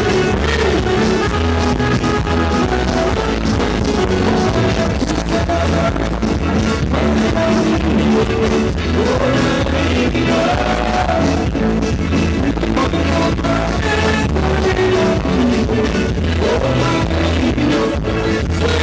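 Live Creole Palo de Mayo (Maypole) dance music: a band with singing, guitar, drums and a steady pulsing bass beat, recorded with rough audio quality.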